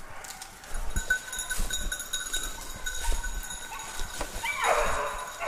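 Petit basset griffon vendéen hound giving voice while hunting: one loud bay about four and a half seconds in, over footsteps and rustling in dry fallen leaves.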